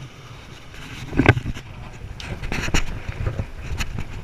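Knocks and rustling from handling a freshly caught sea robin right at the microphone, over a low wind rumble; the sharpest knock comes about a second in.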